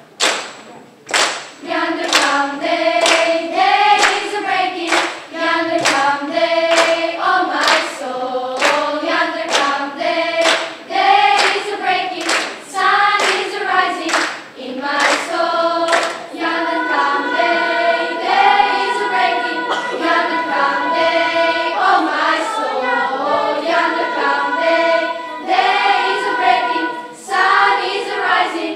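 Children's school choir singing, with sharp hand claps keeping a steady beat of about two a second. The claps start alone and the voices come in about two seconds in.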